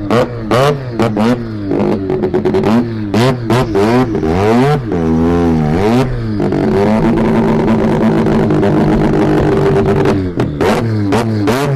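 A car engine revved hard and repeatedly through a loud aftermarket exhaust, its pitch rising and falling with each blip. Sharp exhaust pops and cracks come between revs, then the engine is held at steady high revs for a few seconds before more blips and pops near the end.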